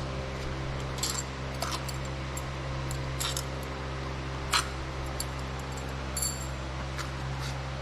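Light metallic clinks and taps, about half a dozen, as a motorcycle stator cover is worked onto the engine case over guide pins; one clink a little after halfway is the loudest, and a later one rings briefly. A steady hum runs underneath.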